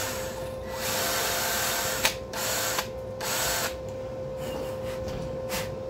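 Rotary power tool abrading the steel of a concrete mixing paddle, cleaning it to bare, shiny metal as prep for welding. A rough scraping noise comes in several bursts of under a second to about a second, with short pauses between, growing fainter near the end.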